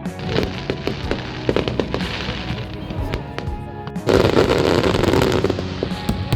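Fireworks going off: a run of sharp bangs and crackles, then a louder, dense burst of crackling about four seconds in, with music playing underneath.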